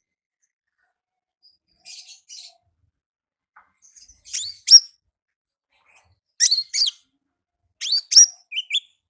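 Sunbird (konin ninja) calling in short bouts of high, sharp chirps, each bout a second or two apart with silence between. The calls grow louder from about four seconds in.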